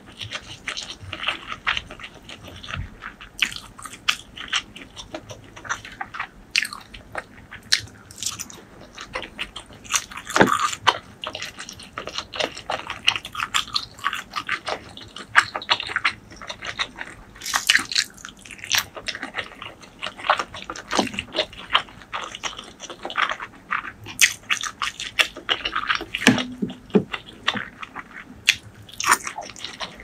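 Close-miked chewing and wet mouth smacks of a person eating soft steamed dumplings: a dense, irregular run of short smacks and clicks.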